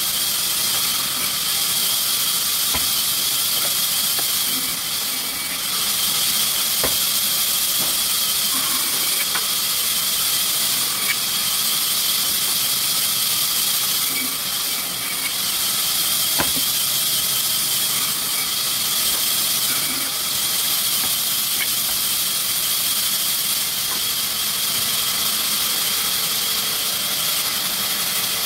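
Steady high-pitched hiss of sawmill machinery running, with a few faint clicks.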